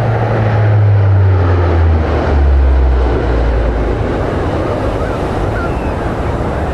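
Aircraft flying past, its low engine drone dropping in pitch over the first four seconds as it goes by, over a steady rush of wind and surf.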